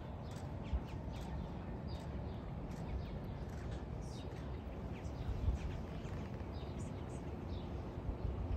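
Outdoor ambience of birds chirping and calling in many short, scattered notes over a steady low rumble.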